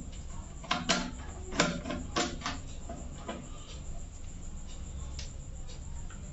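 Clicks and knocks from a wire being fitted into a miniature circuit breaker's terminal and a screwdriver working at it. There are several sharp ones in the first three and a half seconds and a few fainter ticks after, over a low steady hum.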